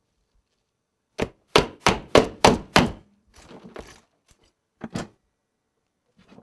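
Large kitchen knife chopping cabbage on an iPad screen covered with a shock-absorbing protector film. Six quick, hard strokes come in under two seconds, followed by softer scattered taps and two more strokes about five seconds in.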